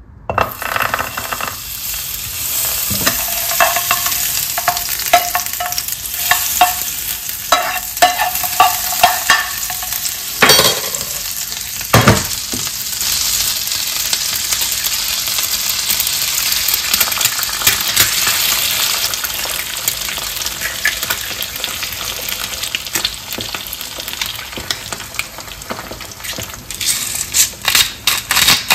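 Egg frying in hot oil in a pan: a loud, steady sizzle that starts suddenly, full of small crackles and spits, with a few louder pops and some sharp clacks near the end.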